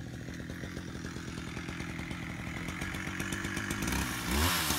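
A small engine running steadily and growing louder, then revving up and down several times near the end.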